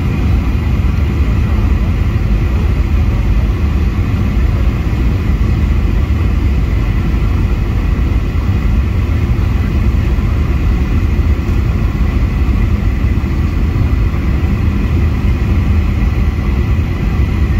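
Steady cabin noise of a Boeing 737-800 in flight, a low rumble of airflow and CFM56-7B engines with a faint steady whine above it.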